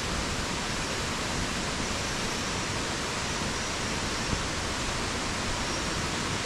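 Steady, even rushing hiss with no pattern or rhythm, with a couple of faint high peeps.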